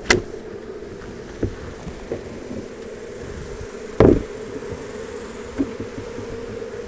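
A swarm of honey bees buzzing steadily around an opened hive, with a few sharp knocks of wooden hive boxes and frames being handled. The loudest knock comes about four seconds in.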